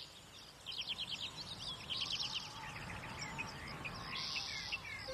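Small songbirds chirping in quick bursts of short, high notes and buzzy trills, several calls overlapping, over a low, steady background rumble.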